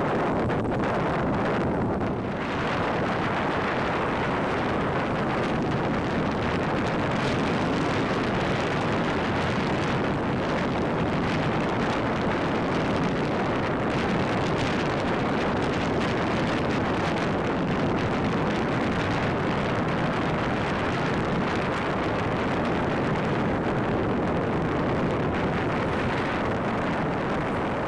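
Steady wind rushing over the microphone aboard a sailboat underway.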